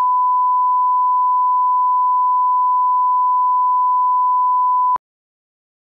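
1 kHz reference tone played with colour bars: a steady, pure beep that cuts off suddenly about five seconds in.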